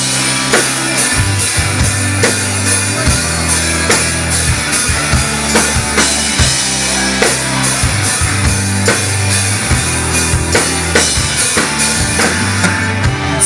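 Live rock band playing an instrumental passage without vocals: electric guitars over a drum kit keeping a steady beat.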